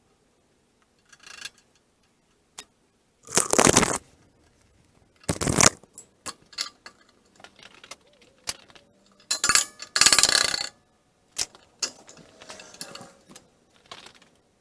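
Clinks and clanks of metal parts and tools being handled, with three loud, harsh bursts lasting half a second to a second each.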